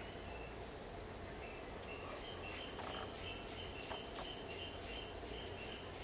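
Outdoor insect chorus, crickets or similar, buzzing at a steady high pitch. From about a second and a half in, a small bird repeats short chirps a couple of times a second. A few faint taps are scattered through.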